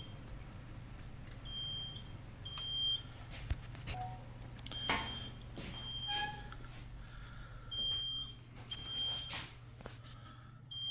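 Electronic alarm beeper sounding short, high-pitched beeps, mostly in pairs about every three seconds, over a steady low electrical hum.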